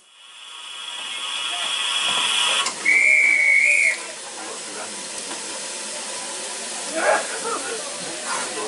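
Steam tank locomotive hissing steam, with a loud, slightly wavering whistle blast about a second long, about three seconds in.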